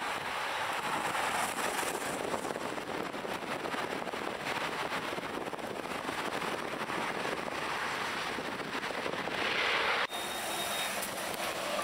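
Jet airliner climbing out after takeoff, heard from a distance as a steady rushing roar of its engines. The sound breaks off abruptly about ten seconds in, then carries on.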